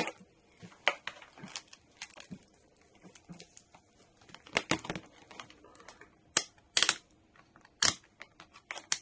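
Clicks, taps and rustles of a handheld multimeter and its test leads being picked up and set down on a workbench, with a few sharper clicks in the second half.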